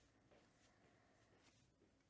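Near silence: room tone, with one faint click about one and a half seconds in.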